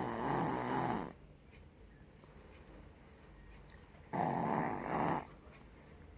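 Snoring in sleep: two loud snores, each about a second long. The first ends about a second in and the second comes about four seconds in.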